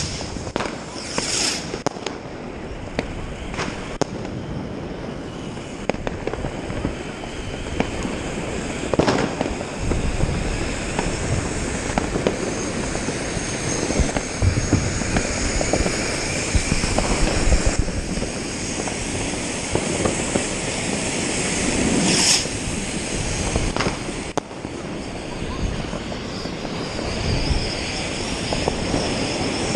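New Year's Eve fireworks: a continuous run of firecracker and rocket bangs and crackling, some near and some distant, with thin high whistling tones and a loud burst about 22 seconds in.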